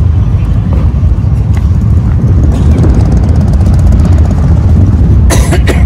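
City street noise, mostly a loud, constant low rumble of road traffic and wind on the microphone. Near the end comes a brief, sharp, loud sound.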